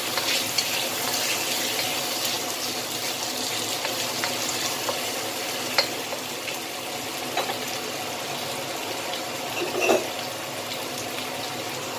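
Chicken wings sizzling in hot oil in a wok, with a wooden spatula scraping and knocking against the pan as they are turned. A few sharp knocks stand out, the loudest near the end.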